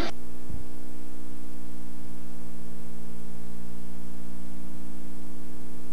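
Music cuts off abruptly, leaving a steady electrical mains hum with faint hiss on the recording. There is a single low thump about half a second in.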